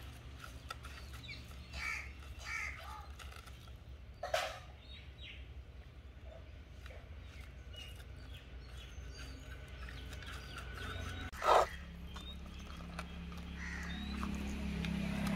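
Crows cawing outdoors, two short loud calls, about four seconds in and again near eleven seconds, with small birds chirping. Under them are faint soft sounds of bare hands mixing masala into fish in a clay pot.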